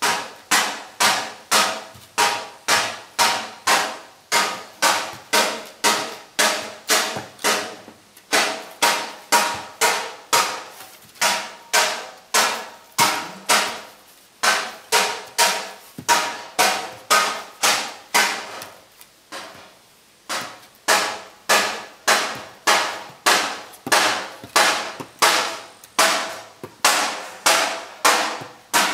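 Steady hammering, about two blows a second, each blow ringing briefly, with a few short pauses.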